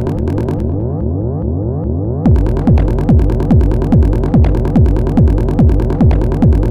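Hypnotic techno/psy pattern played on an Elektron Model:Cycles groovebox: a pulsing synth bass sequence with rising synth lines carries on alone without kick or hi-hats. A little over two seconds in, the four-on-the-floor kick drum and hi-hats drop back in, at about two kicks a second.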